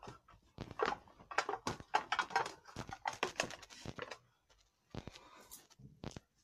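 Pokémon trading cards being handled and put down by hand: a run of quick clicks and taps for about four seconds, a brief brushing sound about five seconds in, then a few more taps near the end.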